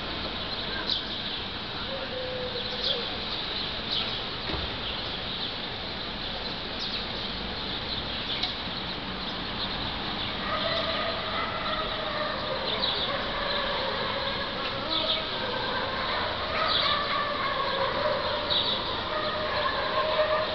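Outdoor background noise with short high chirps repeating about once a second; from about halfway through, a drawn-out wavering call with several pitches joins in.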